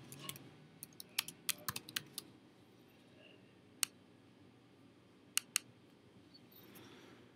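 Typing on a computer keyboard: a quick run of keystrokes in the first two seconds, then a single key click near the middle and two more a second and a half later.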